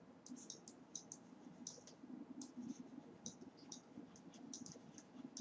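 Near silence with faint, irregular light clicks from handwriting being input on a computer for a digital whiteboard.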